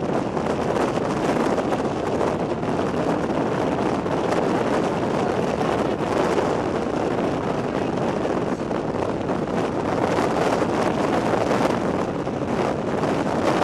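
Strong storm wind near a tornado rushing steadily and buffeting the microphone, without letup.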